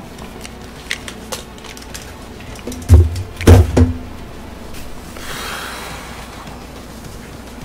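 Handling noise as a person adjusts his headset and cap: a few light clicks, then two loud, dull thumps about three seconds in, and a soft breathy hiss a couple of seconds later.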